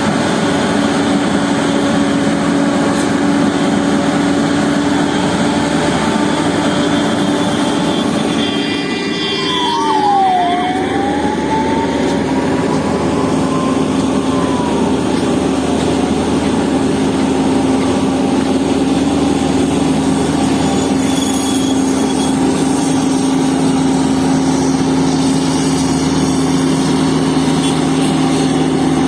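Heavy diesel engine of road-works machinery running steadily, with a high whine that dips and then rises again around ten seconds in.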